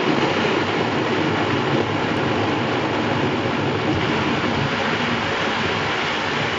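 Kenwood countertop blender running steadily, loud and even, blending chunks of onion, tomato and red pepper with a little water into a thick purée.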